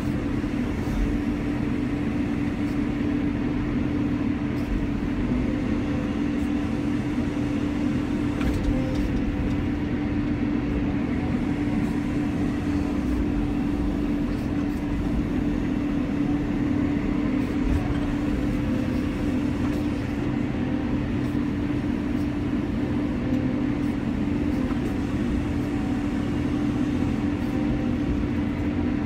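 Caterpillar 320 excavator's diesel engine and hydraulics running steadily with a constant hum, heard from inside the operator's cab while the machine digs and swings soil.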